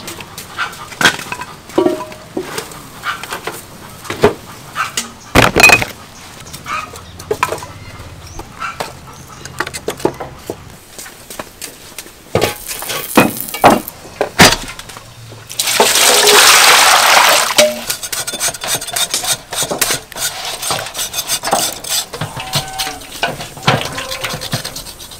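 Split wood and charcoal clattering and knocking into a small metal bucket stove, then clanks of a metal wok being set on it. About two-thirds of the way through comes a hissing rush lasting about two seconds.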